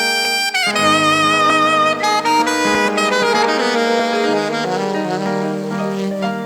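Saxophone playing a slow melody over sustained keyboard chords, a long held note giving way about half a second in to a phrase of notes with wide vibrato.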